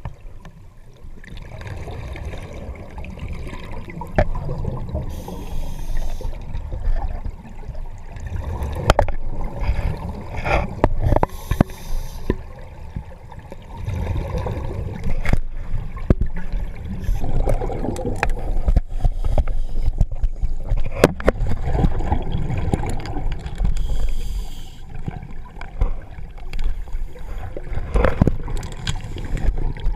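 Underwater sound of a scuba diver breathing on an open-circuit regulator: exhaled bubbles gurgling and rumbling in swells, with scattered sharp clicks.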